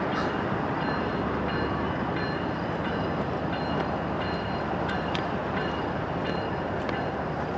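Diesel-electric freight locomotives (a GE ES44DC and an EMD SD70M-2) running at low speed as they pull a double-stack container train, a steady rumble with faint high-pitched tones coming and going and a few light clicks.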